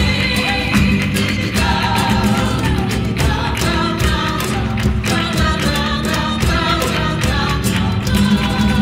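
Live flamenco ensemble music: voices singing over guitar and violin, with sharp percussive strikes coming thick and fast throughout.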